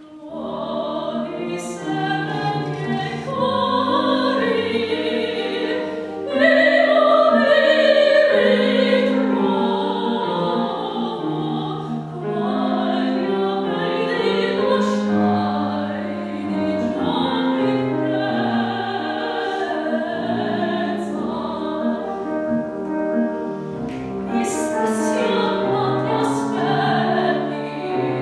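Classical woman's voice singing an Italian art song, accompanied on grand piano; the music starts suddenly out of silence at the very beginning.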